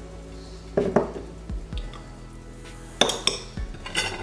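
Metal spoon scraping thick marmalade out of a glass jar and clinking against the glass and plate, with sharp knocks about a second in and again near three and four seconds.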